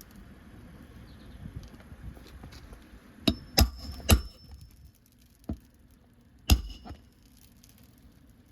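Hammer driving roofing nails through an asphalt shingle: three sharp strikes in quick succession, the first about three seconds in, then a lighter tap and one last hard blow, some with a brief metallic ring.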